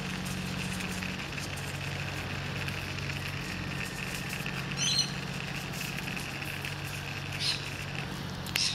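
Can of expanding foam filler spraying through its straw nozzle into gaps in polystyrene, a quiet crackling hiss, over a steady low hum.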